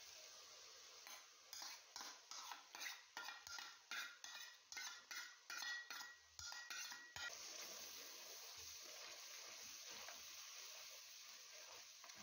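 A spoon scraping and knocking against a metal strainer, a run of clinks and scrapes about two a second for some six seconds, as a thick paste is emptied into the pot. Under it, a faint steady sizzle of masala frying in oil.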